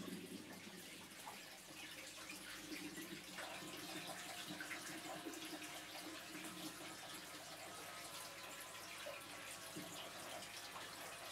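Faint, steady trickling and splashing of water circulating in a reef aquarium, with a scatter of tiny ticks.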